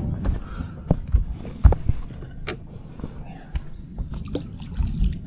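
Irregular knocks and thumps on a small boat's deck and hull as crab-pot rope is handled at the bow, about seven of them over a low rumble.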